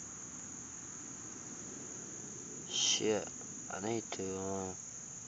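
Crickets chirring steadily at a high pitch. About three and four seconds in, a few short voice-like sounds rise over them.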